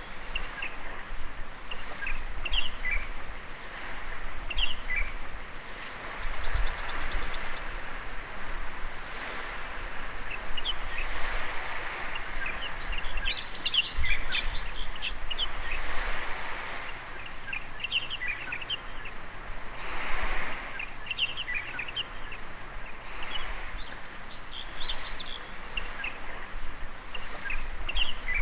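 Small waves washing in at the shoreline, the hiss swelling and easing every few seconds, with birds chirping over them, including a quick trill about six seconds in.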